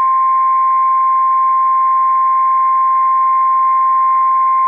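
NOAA Weather Radio 1050 Hz warning alarm tone: one loud, steady, high-pitched beep over faint radio hiss. It signals that a warning broadcast, here a severe thunderstorm warning, is about to follow.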